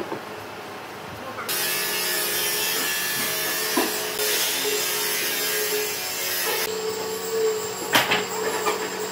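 An electric power tool working wood, starting about a second and a half in: a steady machine hum under a loud hiss, with a sharp knock near the end.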